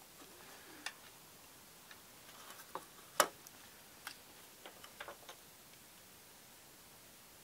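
Small clicks and taps of a circuit board and soldering iron being handled on a workbench: scattered light ticks, with one sharp click a little past three seconds in the loudest, then a few more ticks.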